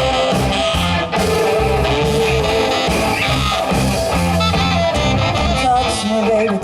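A rock band playing an instrumental passage: electric guitar lines over a repeating bass line and drums.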